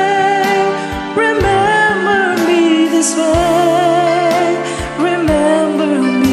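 Singing voice on a slow pop ballad over a karaoke backing track with a steady drum beat. A long note is held with vibrato about midway.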